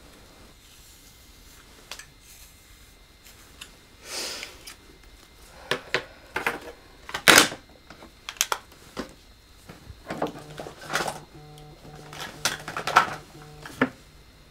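Small cosmetic items clicking and knocking against a vanity desk as they are picked up and set down, with a short hiss about four seconds in and the sharpest click a little after seven seconds. From about ten seconds in, a low buzzing hum pulses on and off in short bursts, like a phone vibrating on the desk.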